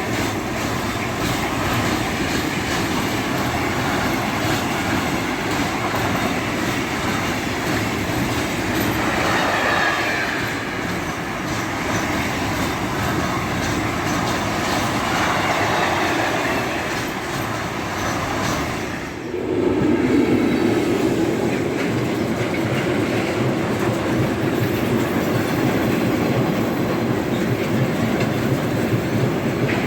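A train passing close by, its wheels clacking over the rail joints in a steady run of wagons. About two-thirds of the way through the sound drops briefly and changes abruptly to a louder, lower rumble of passing rolling stock.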